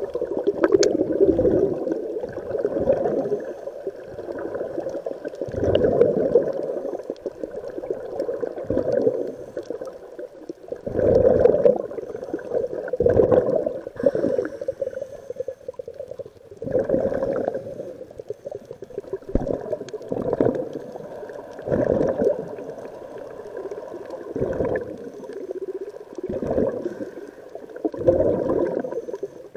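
Scuba regulator exhaust bubbles heard underwater: muffled bubbling bursts, one every couple of seconds, as a diver breathes out through the regulator.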